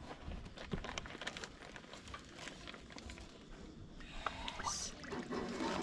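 Faint scattered clicks and taps, with a few brief high chirps about four and a half seconds in.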